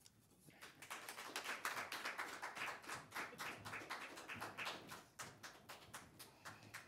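Light applause from a small audience: a scattering of hand claps that thins out near the end.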